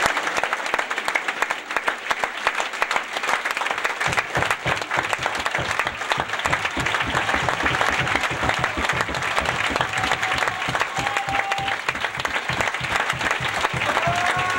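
A large theatre audience applauding in sustained, dense clapping at a curtain call. Claps close by stand out more heavily from about four seconds in.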